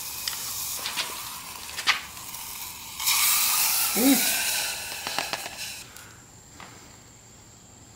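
Diced Spam sizzling and crackling in a hot stainless steel cup over an alcohol stove. About three seconds in, rice and water poured into the hot cup set off a louder hissing sizzle that dies down over the next few seconds.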